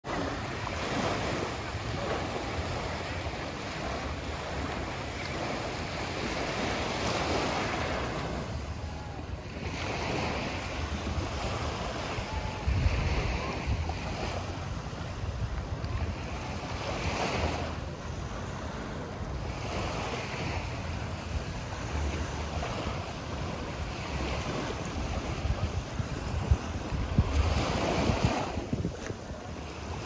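Small waves washing onto a sandy beach shore, swelling and falling back every few seconds, with wind buffeting the microphone as a low rumble.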